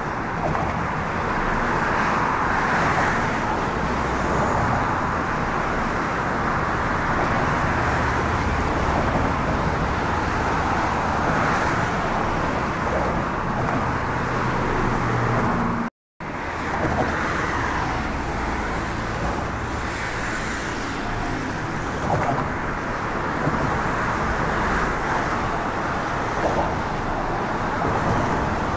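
Steady road traffic noise from cars on the bridge, swelling now and then as vehicles pass. The sound cuts out abruptly for a fraction of a second about sixteen seconds in.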